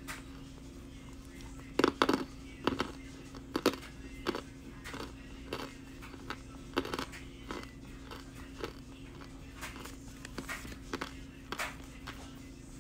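Crunchmuncher pressed cornstarch crunching as pieces are bitten and chewed: an irregular series of sharp crunches, the loudest cluster about two seconds in and sparser crunches after. A steady low hum runs underneath.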